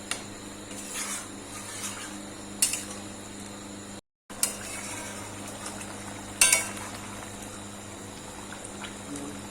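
A cooking utensil clinking and scraping against a pot as a chicken curry is stirred, with a few sharp knocks. The sound cuts out for a moment about four seconds in.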